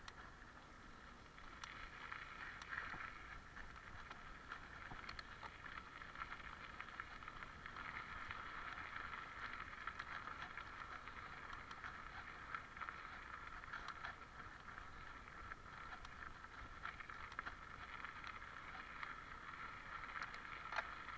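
Mountain bike rolling along a dirt and gravel track: steady tyre noise with scattered small clicks and rattles from the bike, louder from about two seconds in.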